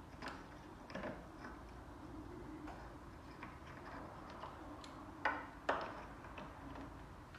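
Metal parts and hand tools clicking and knocking as the front suspension and hub of a car are worked on by hand: scattered light clicks, with two sharper knocks a little after five seconds, about half a second apart.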